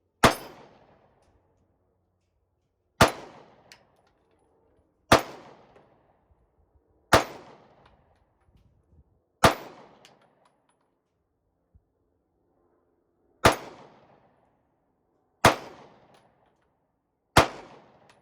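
SIG Sauer P365 9mm pistol firing eight shots, one roughly every two seconds, each a sharp crack with a short ringing tail, with a longer pause after the fifth.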